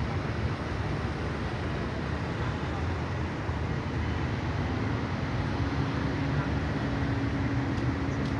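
Steady city road traffic: cars running on the adjacent street. A steady low hum joins about halfway through.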